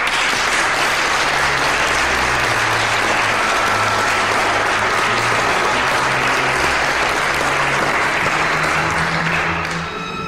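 Members of a parliamentary assembly applauding together in a steady, dense round of clapping, with low held music notes coming in underneath about a second in. Near the end the applause fades away while the music carries on.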